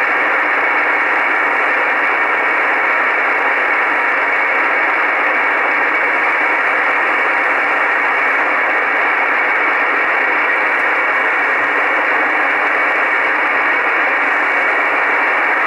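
Steady shortwave static hiss from an Icom IC-R8500 receiver in upper sideband on 14.582 MHz, with no voice on the channel. The hiss is thin and narrow, cut off above and below by the receiver's sideband filter.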